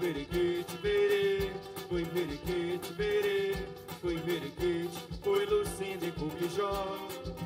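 Carimbó music: a sustained melodic line over a steady beat of drums.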